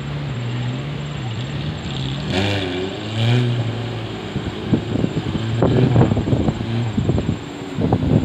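Off-road jeep engine running, its pitch rising and falling as it works. From about halfway through it is joined by a run of quick knocks and rattles.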